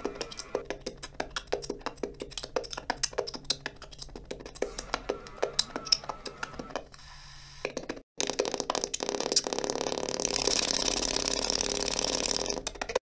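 Defective radios crackling: irregular clicks and pops for the first seven seconds, then a brief cut-out about eight seconds in, followed by a steady rush of static with crackles.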